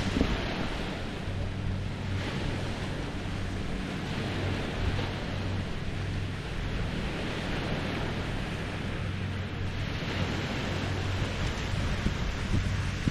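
Small Lake Huron waves lapping and washing on the shore, swelling every few seconds, with a low steady hum underneath.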